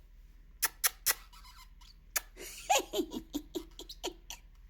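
Pet bird making a series of sharp clicks and smacks, with a short run of squeaky, falling calls about two and a half seconds in.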